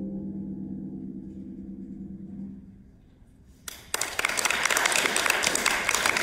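A final chord on a pedal harp rings and slowly dies away, then after a brief hush applause breaks out a little under four seconds in and goes on.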